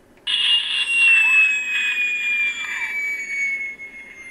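MPH Z-15 police radar's Doppler audio tone, a steady whistle-like tone that starts a moment in and glides slowly down in pitch as the simulated target speed from the signal generator is turned down toward 55 mph.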